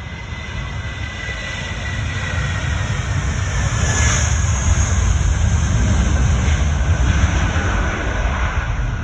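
Airbus A320-200 jet airliner passing by, its engine rumble swelling to a peak partway through, with a whine that slowly drops in pitch as it goes.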